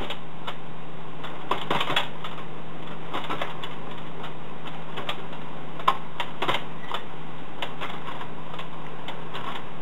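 Junior Chef Cookie Factory toy's plastic hand wheel and chain drive turned by hand, giving irregular light clicks and ticks as the chain carries the cookie tin along.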